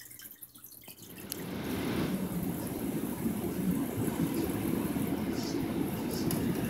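Aquarium water sounds: faint drips at first, then from about a second in a louder, steady rush of bubbling, churning water.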